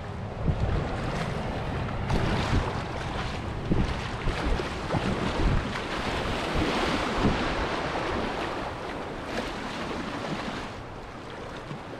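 Kayak running a river riffle: rushing, splashing water around the hull, with wind buffeting the microphone. The rush is fullest in the middle and eases toward the end.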